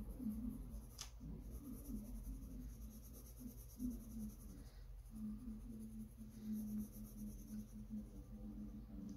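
Mechanical pencil graphite scratching across sketchbook paper in shading strokes, with a single sharp tick about a second in. A faint low wavering hum with breaks runs underneath.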